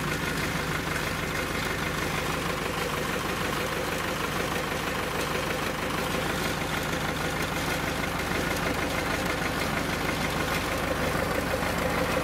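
Tractor diesel engine idling steadily, just started for a test run after its water pump was refitted with a new cork gasket, to check whether coolant still leaks.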